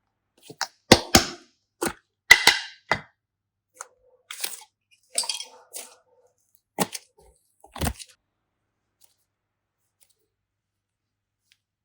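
Sharp clicks and crackling pops from slime and crafting materials being handled, coming in clusters over several seconds and then stopping about eight seconds in.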